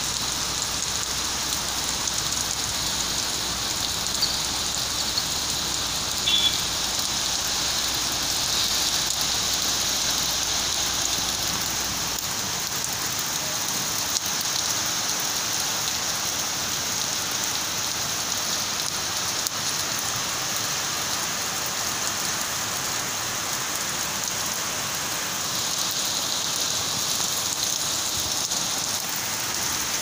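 Heavy rain pouring onto wet paving and a road, a steady dense hiss.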